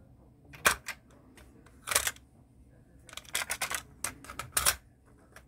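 Cassette being ejected from a Nakamichi MR-1 cassette deck's holder and handled by hand: a string of sharp plastic and mechanical clicks and clacks, with a quick run of them about three and a half seconds in.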